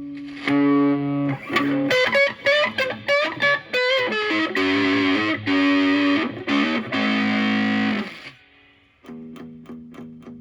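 Electric guitar, a Fender Stratocaster, played through a Moollon Fuzz 14 silicon Fuzz Face-style fuzz pedal (BC108 transistors) into a Marshall Valvestate amp on a crunch tone. The fuzz is in its cleanup range, with the gain backed off to a lighter crunchy distortion. The guitar plays a quick single-note run and then held chords, stops briefly a little after eight seconds, and comes back more softly.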